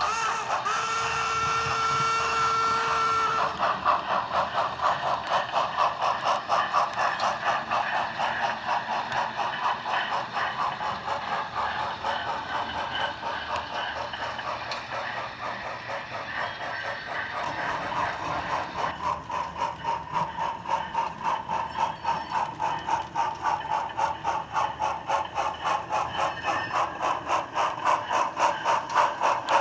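Steam locomotive sound from an HO scale model train: a steady two-tone whistle for about three seconds, then a fast, even beat of exhaust chuffs that runs on and picks up slightly near the end.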